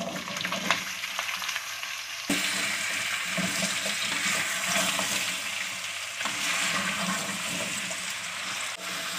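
Cubed raw potatoes tumbling into hot oil with cumin seeds, then sizzling and frying as a wooden spoon stirs them. A few sharp clicks of pieces dropping come in the first couple of seconds, and the sizzle gets suddenly louder about two seconds in.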